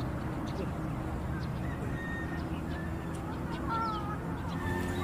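Outdoor ambience with a steady low hum, and a few short bird calls from about the middle onward, two of them honk-like calls near the end.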